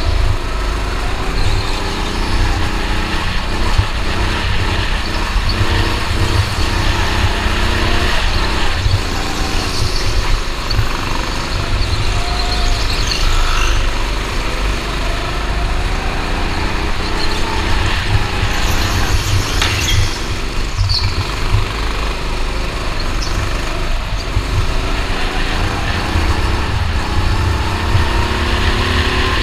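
Go-kart engine heard from on board the kart while lapping a track, its pitch rising and falling again and again as it speeds up and eases off, over a heavy low rumble.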